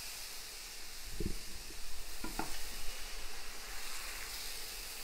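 Buckwheat galette batter sizzling steadily on a hot oiled pan, with a few light knocks of a utensil about a second in and again around two seconds in.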